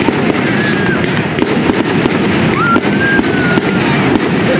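Fireworks display going off: a dense, continuous crackling of many small pops, with sharper bangs every second or so.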